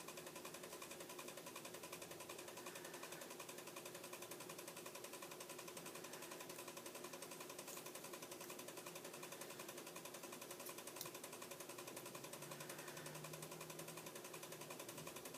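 Faint steady electrical buzz with a fast, even pulse and a low hum, with a light click about eleven seconds in.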